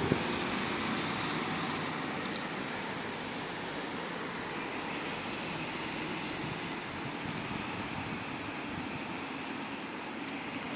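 Waterfall: a steady rush of water falling and splashing, an even noise that holds throughout.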